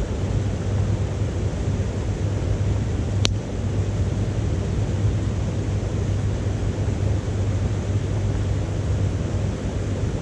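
Wood fire burning in a small titanium wood stove, with one sharp crackle about three seconds in, over a steady low rumble.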